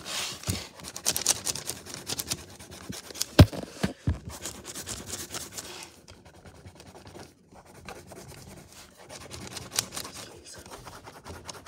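Pencil scratching on notebook paper in quick shading strokes, with a sharp knock about three and a half seconds in.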